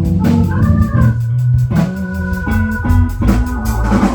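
Instrumental gap between sung lines of a song: held organ chords over a moving bass line and drums.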